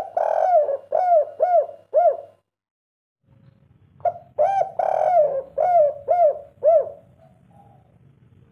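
Spotted dove (derkuku) cooing in the 'kuk 3' style: two loud phrases of about six rounded, arching coo notes each, the third note of each drawn out longer. The phrases come about three seconds apart, with a faint low hum under the second.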